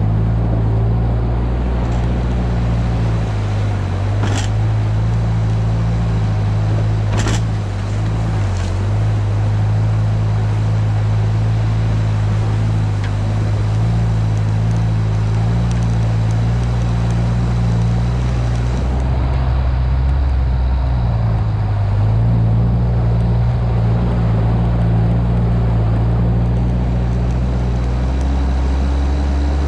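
Mitsubishi Pajero off-roader driving along a muddy, puddled forest track: its engine runs at a steady low drone under a constant rumble of tyres and chassis. Two sharp knocks come a few seconds apart early in the drive, and the engine note dips briefly past the middle.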